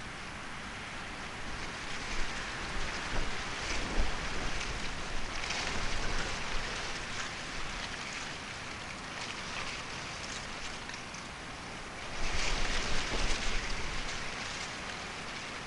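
Steady rain falling, heavier for a few seconds about two seconds in and again near the end.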